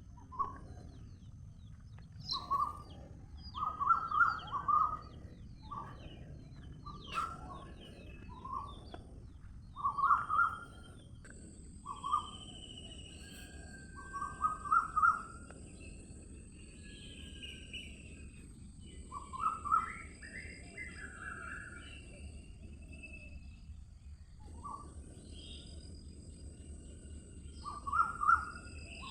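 Birds calling outdoors: short clusters of quick notes repeated every few seconds, with higher chirps between them over a steady low background hiss. A thin, high, steady tone comes in about a third of the way through.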